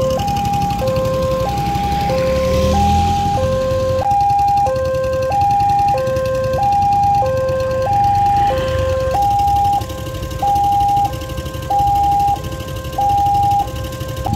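Railway level crossing warning alarm sounding its electronic two-tone signal, a high and a low tone alternating about once every second and a half, which warns that a train is approaching and the barriers are down. About ten seconds in, the low tone fades, leaving the high tone pulsing on its own.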